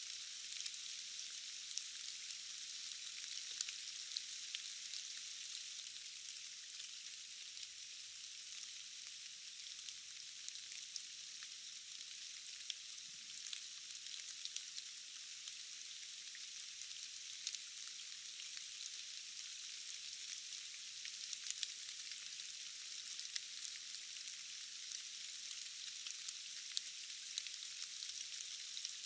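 Steady rain falling: an even, fine hiss dotted with many small drop clicks, thin and without any low rumble.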